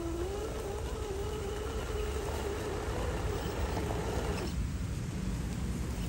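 Electric motor and gear drivetrain of a 1/10-scale Axial SCX10 III RC crawler whining, its pitch wandering up and down with the throttle as it crawls. The whine stops abruptly about four and a half seconds in, leaving a low steady hum.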